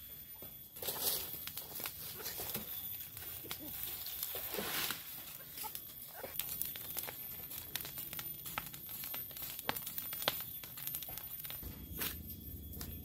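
A smouldering pile of dry cut brush and grass crackling, with many sharp crackles and a few louder rustling bursts.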